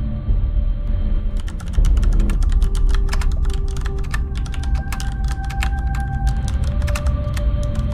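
Typing sound effect: rapid, irregular key clicks starting about a second and a half in, over a deep, droning music bed.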